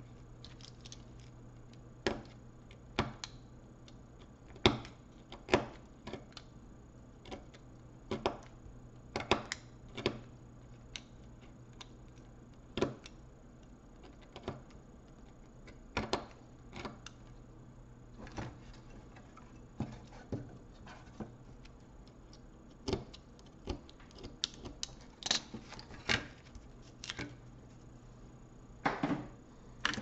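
Sharp, irregular clicks and taps, usually a second or two apart, from a laptop motherboard and hand tools being handled on a workbench. A low steady hum runs underneath.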